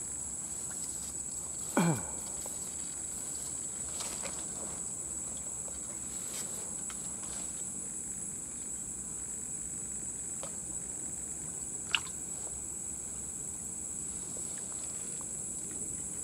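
Steady high-pitched chirring of insects over a quiet waterside background. About two seconds in comes a short falling sweep, and about twelve seconds in a single sharp click.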